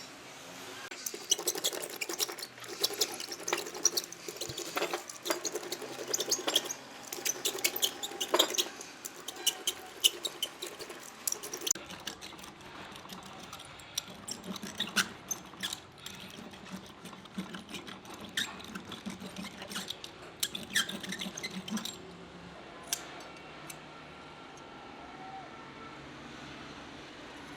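Irregular clicks, taps and scrapes of hand tools working on a tire, busy for about twenty seconds and then thinning out near the end.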